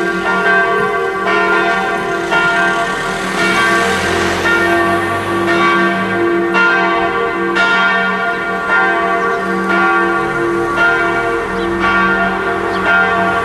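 Church bells ringing out, each stroke about a second after the last, the long ringing tones overlapping into a continuous hum.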